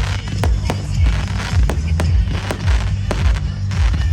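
Fireworks going off in a display: sharp bangs roughly every half second, with patches of crackling hiss, over loud music with heavy bass.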